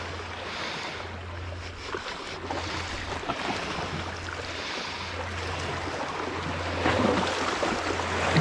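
Wind buffeting the microphone over the wash of the sea, with a steady low hum underneath that briefly drops out now and then.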